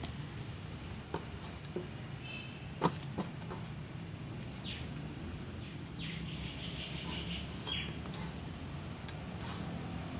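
Outdoor background: a steady low hum with faint bird chirps and a few sharp clicks, the loudest about three seconds in.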